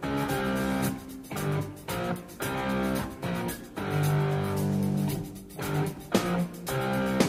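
Instrumental background music with plucked notes in a steady rhythm.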